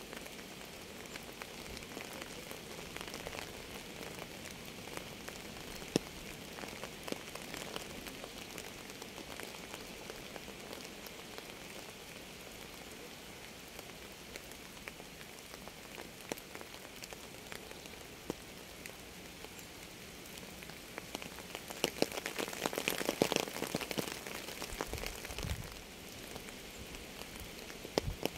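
Steady rain falling, individual drops ticking sharply on a hard surface over an even patter. Near the end the drops come thicker and louder for a few seconds.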